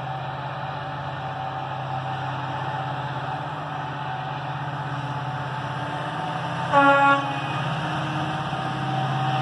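Distant EMD WDG4 diesel locomotive approaching, its engine a steady low drone that grows a little louder. About seven seconds in, the locomotive gives a short blast of its air horn.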